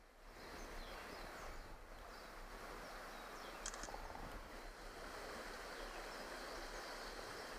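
Steady outdoor background noise, an even hiss with no distinct events, starting suddenly a moment in.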